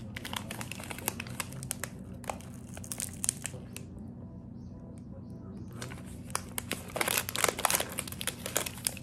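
Paper and plastic food wrapper crinkling as it is handled around a snack, in short crackly bursts. Quieter for a couple of seconds past the middle, then a loud run of crinkling about seven seconds in.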